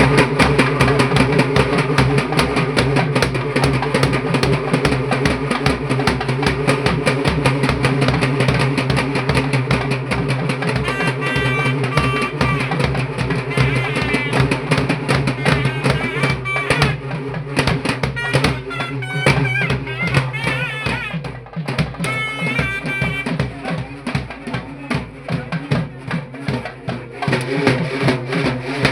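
Live festival procession music: drums beating in a fast, steady rhythm over a low drone, with a high wavering melody line coming in over the drums in the middle stretch.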